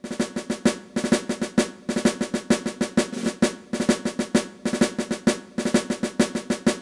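Intro music of rapid snare drum strokes played in short, repeated phrases, like a drum cadence.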